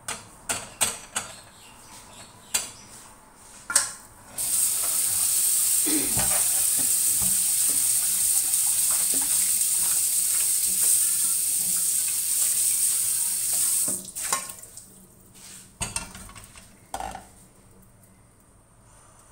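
A metal spatula clinks and scrapes against a plate. Then running water hisses steadily for about ten seconds as a wok is rinsed at the kitchen sink, and is cut off abruptly. A few knocks follow as the wok is set back on the stove.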